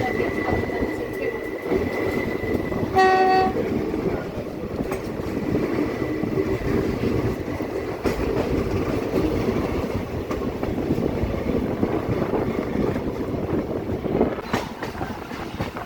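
Passenger train running, the steady rumble of the carriage on the rails, with a short train-horn toot about three seconds in and another just beginning at the very end. A thin high whine runs under the rumble and stops at the first toot.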